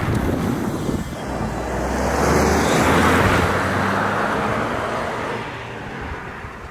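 A car driving past, its engine and tyre noise swelling to a peak about three seconds in and then fading away.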